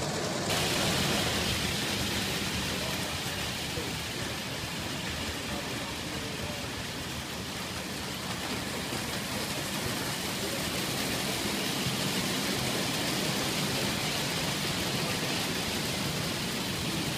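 Prewar Hornby O gauge tinplate model trains running on tinplate track: a steady rolling rattle of wheels on rails, growing louder about half a second in.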